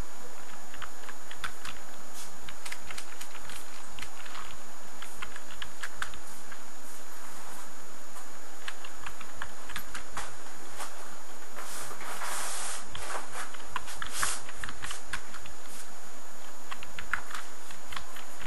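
Slow, irregular typing on a computer keyboard, one key click at a time, over a steady background hiss.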